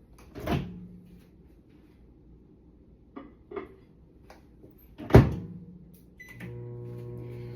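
Microwave oven being loaded and started: a click and a few light knocks, the door shut with a loud slam about five seconds in, a short keypad beep, then the oven starts running with a steady hum.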